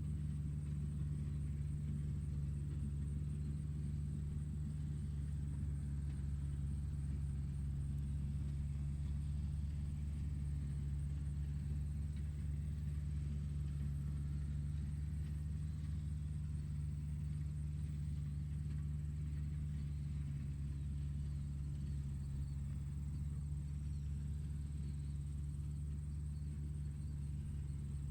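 Tractor engine running steadily, a low, even drone with no change in speed.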